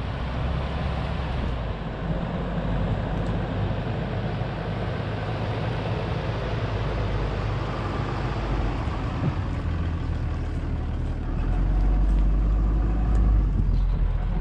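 Ram heavy-duty pickup truck carrying a slide-in camper, driving slowly on a dirt track with a steady engine and tyre noise. It grows louder about three-quarters through as the truck pulls up close alongside.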